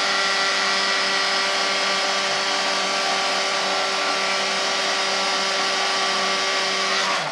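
Electric heat gun running steadily, its fan blowing with a steady motor hum as it heats vinyl wrap film; it cuts off suddenly at the end.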